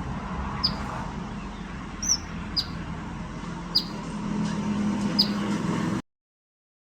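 A small bird chirping: about five short, sharp, high chirps, roughly a second apart, over a steady low hum. The sound cuts off about six seconds in.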